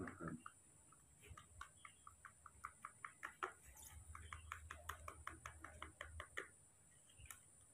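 Spoon clicking and scraping against a small bowl as porridge is stirred: a quick run of faint clicks, several a second, stopping near the end.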